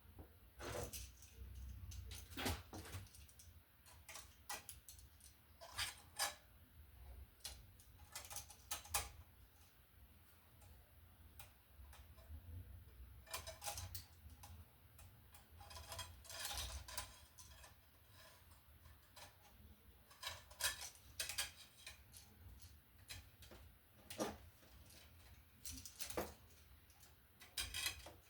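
Faint, irregular clicks and small metallic taps of hand tools and copper wire being worked at an electrical outlet box while a ground wire is bent into a loop.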